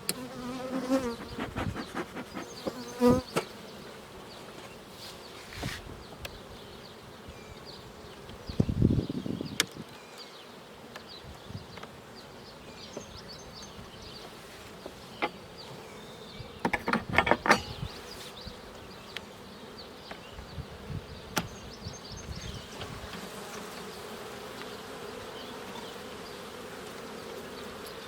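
Honeybees buzzing in a steady hum around an opened hive. Wooden hive boxes and frames are handled, giving several knocks and clatters, loudest about 9 and 17 seconds in.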